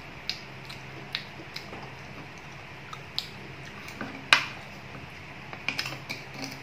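A metal spoon clinks and scrapes against a ceramic bowl of chopped chillies and rice as it is stirred and scooped. It makes a string of sharp clicks, the loudest a little over four seconds in, with a quick cluster near the end, over a low steady hum.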